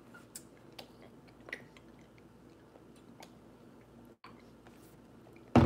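Faint gulping and swallowing as water is sipped through the straw spout of a half-gallon plastic water bottle, with a few small mouth clicks. A sudden loud thump comes near the end.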